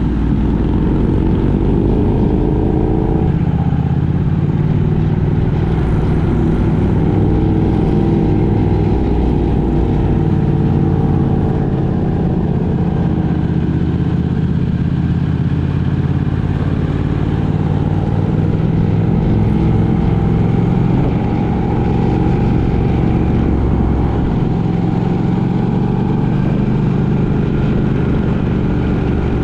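Motor vehicle driving on the road: steady engine drone over road noise, the engine pitch drifting gently up and down with speed.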